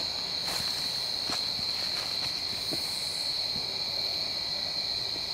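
Steady high-pitched chorus of night insects, with a few faint footsteps crunching on leaf litter.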